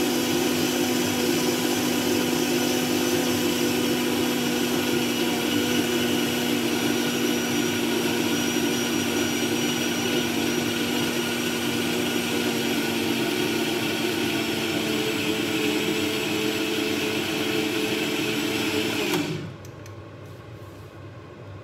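Countertop blender running steadily with a constant motor hum, pureeing asparagus and potato soup, then switched off near the end, the motor stopping abruptly.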